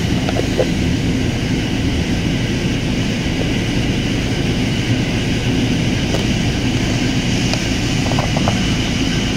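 Steady, loud mechanical drone of machinery running in the background, unchanging throughout. A few faint light ticks of a screwdriver tip catching along the groove of a plastic engine cover sit on top of it.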